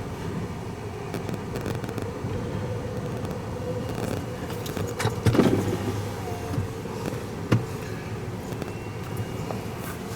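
Steady hum of a running vehicle heard from inside the cabin, with a few sharp taps and a louder knock about five seconds in.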